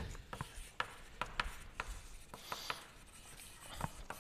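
Chalk writing on a chalkboard: irregular sharp taps and scratches as the chalk strikes and drags across the board.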